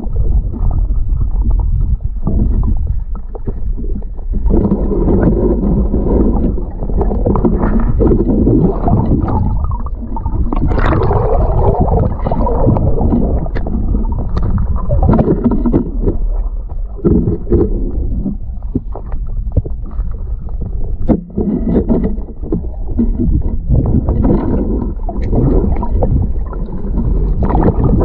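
Water noise picked up by a submerged camera: a continuous muffled rumble with gurgling and scattered small clicks and knocks as the diver moves along the riverbed.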